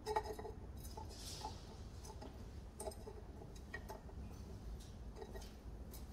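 Light, irregular clicks and knocks of a metal intake pipe being handled and test-fitted at the turbo, with a brief scrape about a second in.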